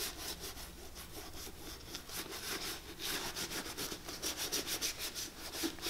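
Gloved hand rubbing leather conditioner into the old leather upper of a Clarks Wallabee boot with quick, repeated back-and-forth strokes, a soft, even swishing.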